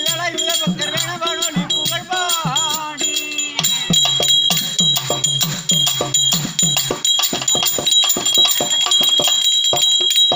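Live therukoothu accompaniment: hand drums played in quick strokes under a steady metallic ringing, with a wavering melody line in the first few seconds. About four seconds in the drumming gets louder and busier.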